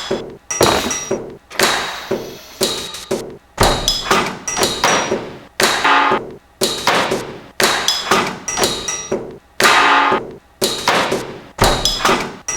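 A steady run of sharp knocks and bangs, about two a second, each ringing briefly.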